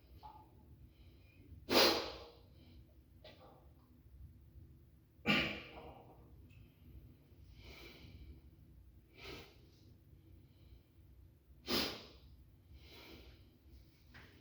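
A person huffing and breathing hard while straining on the toilet, with three loud, sharp forceful exhalations and softer breaths in between.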